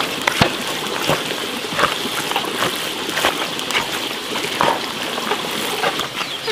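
A ladle stirring wet cooked rice in a plastic basin: irregular scrapes and soft clacks against the basin, over a steady background hiss.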